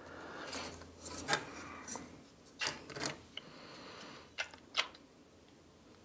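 Plastic case parts of a Yamaha Disklavier remote control being fitted together by hand: scraping and rubbing, with several sharp clicks as pieces are pressed into place.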